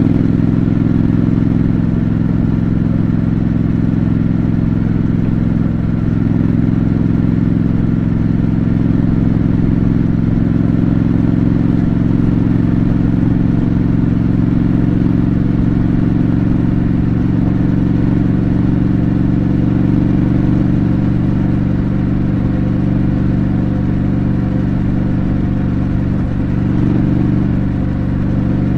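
Triumph Scrambler 900's parallel-twin engine through its stock exhaust, pulling at a steady cruise with the engine note holding nearly constant, wavering slightly near the end.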